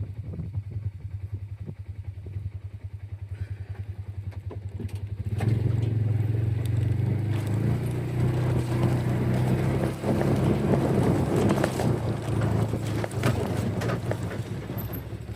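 A vehicle engine idling with an even pulse, then opening up louder about five seconds in and running under load.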